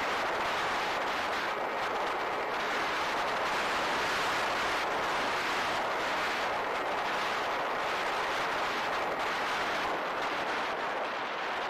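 Steady rushing wind noise.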